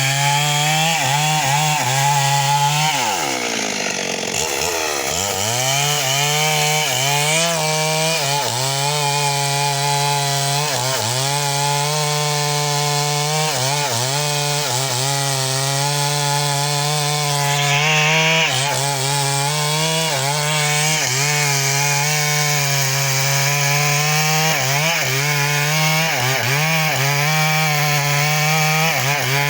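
Stihl MS 382 two-stroke chainsaw running at high revs while cutting mahogany, its pitch sagging briefly again and again as the chain bites into the wood. A few seconds in, the engine bogs down deeply and then climbs back up.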